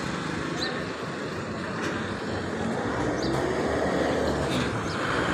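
Traffic at a busy road crossing: the engines of passing vehicles, among them an auto-rickshaw, over steady road noise.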